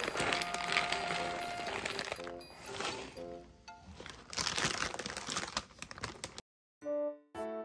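A foil pet-food bag crinkling as dry cat kibble is poured from it into a paper bowl, in two bouts, the second about four seconds in, over light background music. Near the end the rustling stops and only the music goes on.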